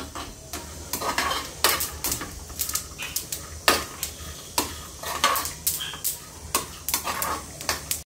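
Steel spatula stirring and scraping peanuts, dried coconut and sesame seeds as they dry-roast in a steel kadai, in repeated uneven scrapes and rattles against the pan.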